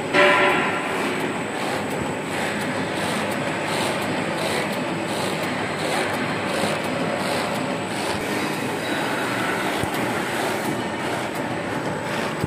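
Woven-sack cutting machine running steadily, a continuous mechanical clatter. A brief loud tone, about a second long, sounds right at the start.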